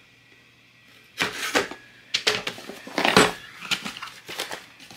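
Cardboard packaging sleeve being pried and pulled off a plastic tool case: an irregular run of rustling, scraping and crackling noises, starting about a second in.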